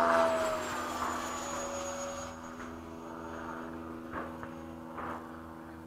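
FMS 80mm Hawk electric ducted-fan RC jet flying past: its fan whine is loudest right at the start, drops in pitch as it goes by, then fades as it flies off.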